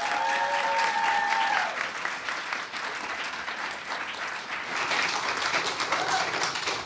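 Audience applauding, with a voice calling out in a long held cheer over the first second or two; the clapping dies away at the very end.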